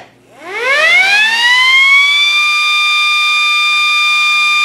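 Small DC motor siren (MS-590) switched on, winding up in pitch over about two seconds to a steady high wail, which it holds.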